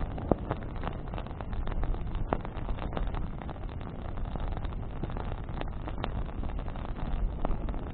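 Wood campfire burning, with frequent irregular sharp crackles and pops from burning branches over a steady low rumble.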